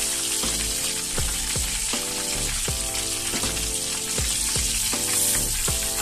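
Hot oil sizzling steadily as battered chicken deep-fries in a wok, over background music with a steady beat.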